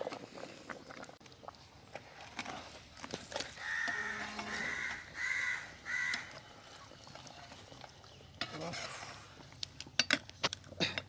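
A bird calling four times in harsh caws, each about half a second long, a few seconds in. Scattered light clinks of metal cookware come and go, most of them near the end.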